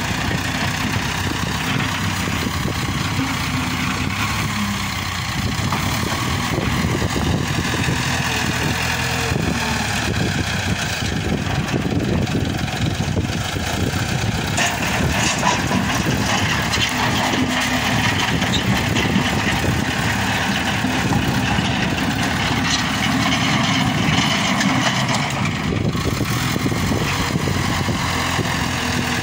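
Backhoe loader's diesel engine running steadily close by, a little louder for a while in the second half.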